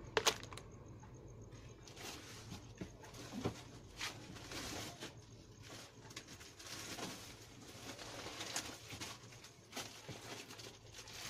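Clicks, knocks and rustling of a plastic snack jar and store goods being handled, with a sharp click just after the start.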